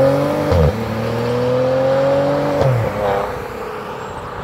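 2014 Maserati Ghibli SQ4's twin-turbo V6 accelerating hard away, the engine note climbing with revs and dropping back twice at upshifts, about half a second in and again around two and a half seconds in. The sound fades as the car draws away.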